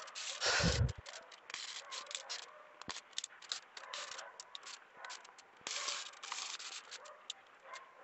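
Dry pine needles and sweet potato vines rustling and crackling as a hand pushes through them into the soil, in short irregular bursts. A louder, lower thud sounds about half a second in.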